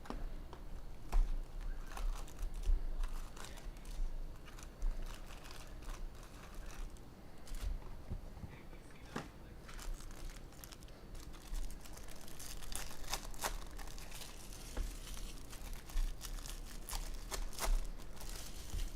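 Plastic wrapping crinkling and tearing in irregular crackles as a box of 2023 Bowman Jumbo baseball card packs is opened, busiest in the second half.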